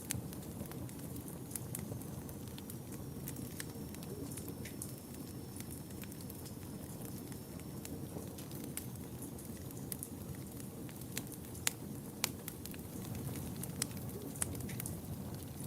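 Wood fire burning in a fireplace: a steady low rumble of flame with irregular crackles and sharp pops, a few louder pops past the middle. A faint, thin high whistle holds for several seconds in the middle.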